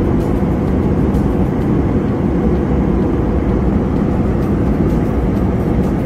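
Jet airliner cabin noise in flight: a steady, dense rumble and hiss of engines and airflow heard from inside the cabin.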